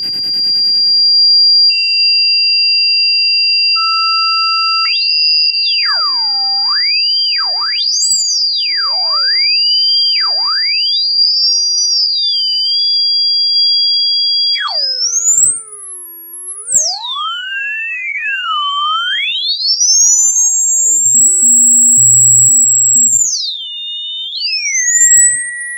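Electronic rodent-repellent tones: pure whistling tones that first hold steady, then sweep up and down in pitch between low and very high whistles, with two or three tones sounding at once. A short buzz opens it, and a low pulsing hum comes in about three quarters of the way through.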